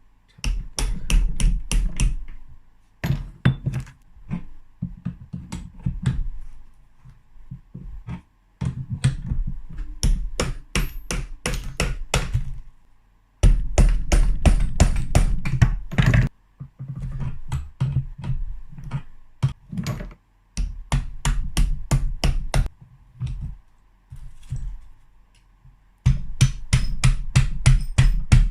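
Mallet blows tapping on a two-stroke motorcycle engine's aluminium crankcase to split the case halves apart, quick runs of about four or five knocks a second broken by short pauses.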